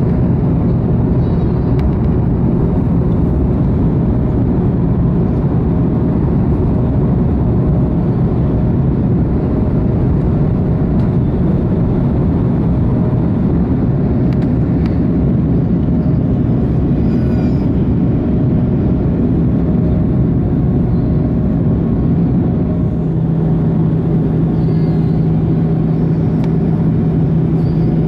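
Steady, loud cabin roar of an Airbus A330-200 with Rolls-Royce Trent 700 engines, shortly after takeoff: engine drone and rushing airflow, with a steady low hum that grows stronger near the end.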